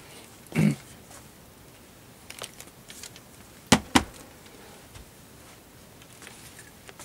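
Handling noise of camera gear being moved and set down: a few faint small clicks, then two sharp clicks about a third of a second apart just past the middle. A brief vocal sound about half a second in.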